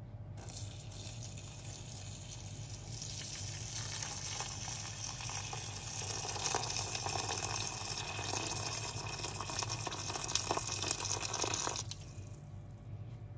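A stream of water poured into a stainless steel bowl of dry rice vermicelli, a steady splashing hiss that grows slightly louder as the bowl fills, then stops abruptly near the end.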